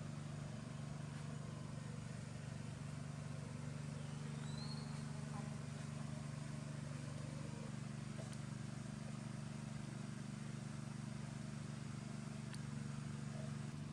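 A steady low hum, with a few faint high chirps on top, one a short rising whistle about four seconds in.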